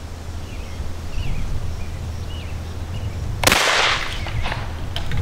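A single 12-gauge shotgun shot about three and a half seconds in, with a brief echo trailing after it.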